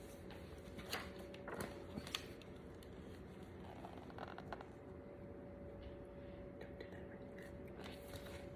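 Quiet room tone with a faint steady hum, and a few soft clicks and rustles in the first couple of seconds.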